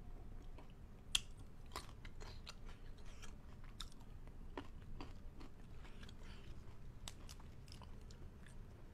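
A person chewing and biting food close to the microphone: soft, scattered wet clicks and small crunches, with one sharper crunch about a second in.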